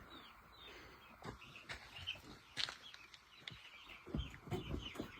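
Chickens peeping faintly: a steady string of short, high cheeps that slide downward, with a few soft knocks in between.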